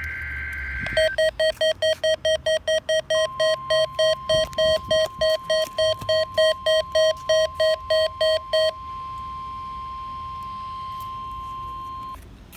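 NOAA Weather Radio alert being received: the end of the SAME header's warbling digital data burst, then the receiver's alarm beeping about three times a second until about nine seconds in, overlapping the steady 1050 Hz warning alarm tone, which starts about three seconds in and cuts off abruptly near the end. It is the weekly test of the weather radio warning alarm.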